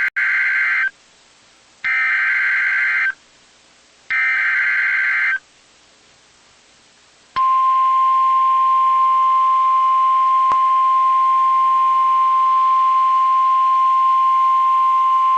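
Three bursts of NOAA Weather Radio SAME header data, each just over a second long with short gaps between them, followed about seven seconds in by the single steady 1050 Hz weather-radio alert tone. Together they announce that a new warning message is about to be broadcast.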